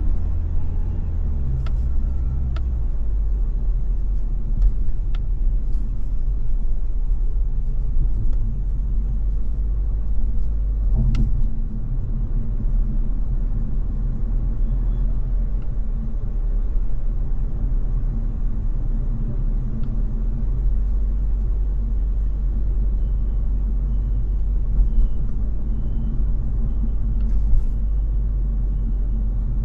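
Car driving in city traffic: a steady low rumble of engine and road noise, with a few light clicks and a row of faint short high beeps near the end.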